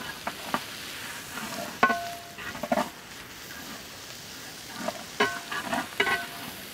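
A metal ladle stirring and knocking against a metal cooking pan over a steady frying hiss. Several sharp clanks ring briefly, the loudest about two seconds in and again near the end.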